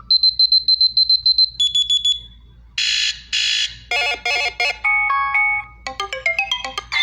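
A run of different electronic alarm tones played one after another: a rapid, high-pitched beeping, then two buzzy bursts, then a short beeping melody of stepped notes.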